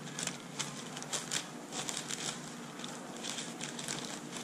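Thin Bible pages being leafed through by hand: paper rustling and crinkling, with a scatter of small crackles.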